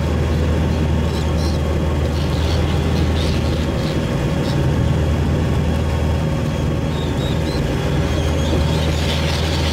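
Boat motor running steadily at low speed, a continuous low drone.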